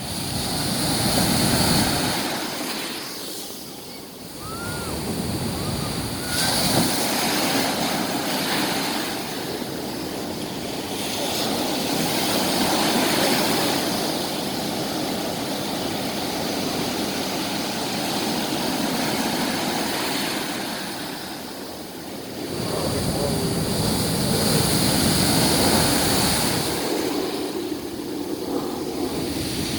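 Black Sea surf breaking on the shore, the wash surging and ebbing in swells every few seconds.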